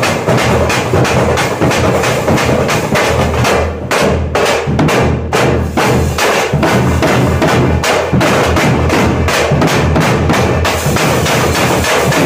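Drum troupe playing large stick-beaten bass drums and snare drums together in a fast, dense, unbroken rhythm.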